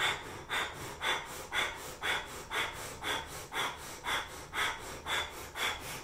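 Kundalini breath of fire: a woman's rapid, rhythmic breathing through the nose, short puffs at an even pace of about two a second.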